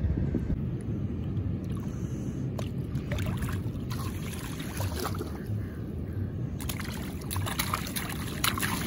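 Water splashing and sloshing as people play in a shallow river mouth, over a steady low rumble of wind on the microphone; the splashing grows busier in the second half.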